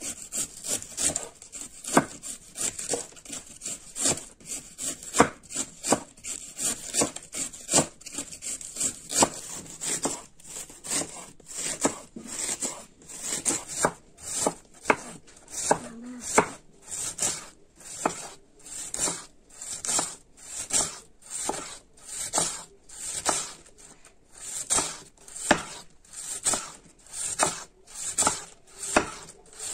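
A large kitchen knife thinly shredding a head of white cabbage on a wooden cutting board: a steady, rhythmic run of crisp slicing strokes, about two a second, each ending as the blade meets the board.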